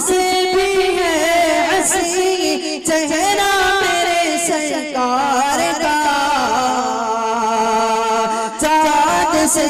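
A young man singing a naat (Islamic devotional song) into a microphone, drawing out long held notes with ornamented, wavering pitch and no clear words.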